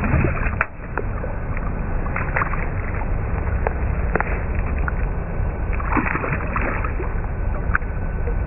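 A hooked bass splashing at the surface beside a small aluminium boat in a few short bursts, over a steady low rumble and scattered clicks.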